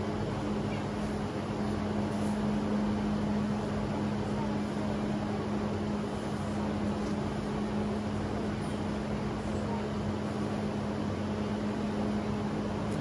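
Steady mechanical hum with a constant low tone under an even hiss.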